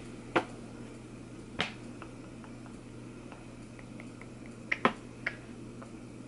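A few sharp clicks and taps of small objects being handled, about five in all, with two close together near five seconds in, over a low steady hum.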